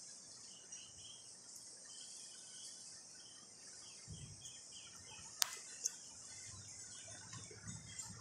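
Faint outdoor garden ambience: a steady high insect drone with small birds chirping in short repeated notes, two sharp clicks about halfway through, and a low rumble joining from about halfway.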